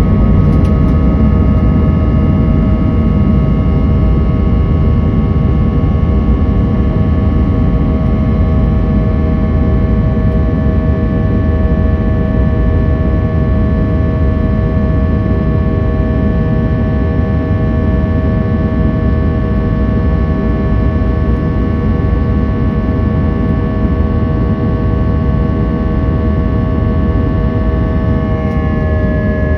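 Airbus A320's IAE V2500 turbofan engines running steadily: a loud, even rumble with several steady whining tones on top, which shift slightly lower near the end.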